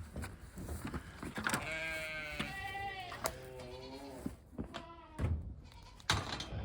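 A farm animal bleating: a run of long, wavering bleats starting about a second and a half in, then a short one about five seconds in.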